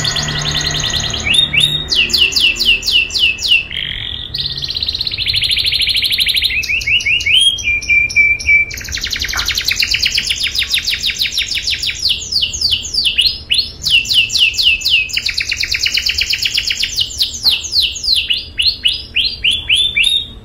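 Domestic canary singing a long, nearly unbroken song of rolling trills: fast runs of repeated notes that switch to a new phrase every second or two.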